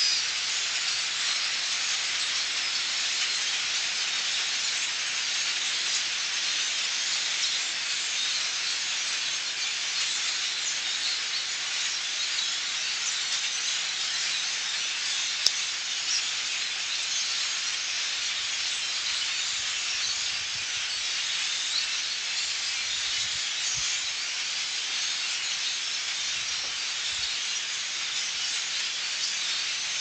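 Huge migrating flock of birds calling overhead, thousands of voices blurring into one steady, hissing wash of chatter. A single sharp click sounds about halfway through.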